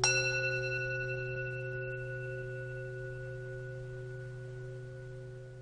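A metal bell is struck once and rings with several clear, unevenly spaced tones that slowly fade, over a steady low hum.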